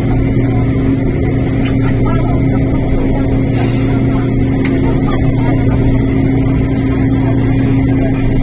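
Interior running noise of an MTR Tung Chung Line CAF train moving slowly along a station platform: a steady low hum that stays level in pitch, with a short hiss about three and a half seconds in.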